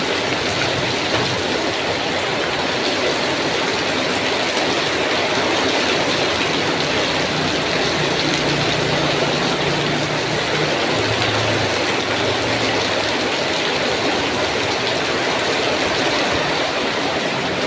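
Heavy rain pouring down in a steady, loud hiss. A faint low hum comes in about eight seconds in and fades a few seconds later.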